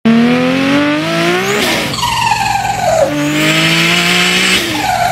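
High-performance car engine revving hard. Its pitch climbs, breaks off in a rush of noise, drops in a falling note, then climbs and falls once more near the end.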